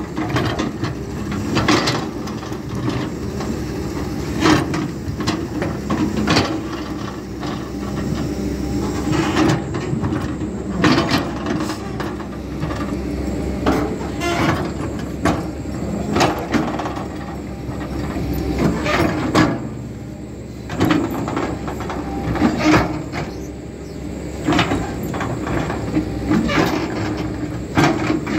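Caterpillar hydraulic excavator working as it digs: the engine runs steadily under load while the bucket and boom linkage clank and knock, roughly once or twice a second, as the bucket scrapes through stony soil.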